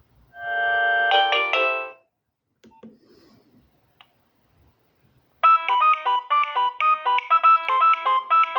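Nokia 6030 mobile phone playing ringtones through its small speaker: a brief chord-like burst of tones lasting under two seconds, a few faint clicks, then about five seconds in a new polyphonic ringtone starts, a quick repeating melody of several notes at once.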